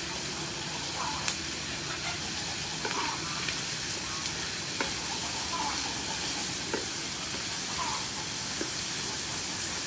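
Sea snail and vegetables sizzling in oil in a frying pan while a wooden spatula stirs and scrapes them, with a steady hiss and now and then a short knock of the spatula against the pan.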